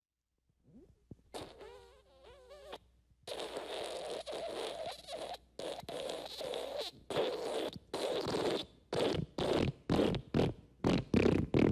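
Fart sound effects in sequence: a wavering, squeaky pitched fart, then a longer noisy one, then a string of short blasts that come faster and louder toward the end.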